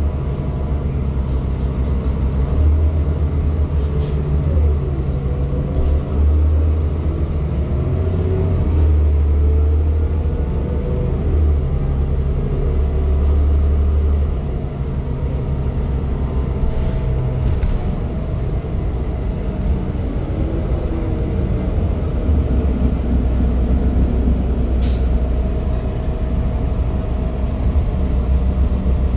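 Cabin of a 2012 New Flyer D40LFR city bus under way: the Cummins ISL9 inline-six diesel and Allison transmission give a low drone whose pitch rises and falls as the bus changes speed. The drone eases about halfway through and builds again near the end, with a few light clicks or rattles.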